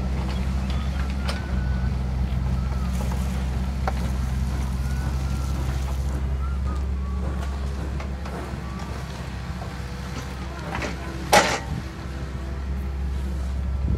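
Kobelco SK50 mini excavator's diesel engine running steadily, with scattered clanks and one loud knock about eleven seconds in.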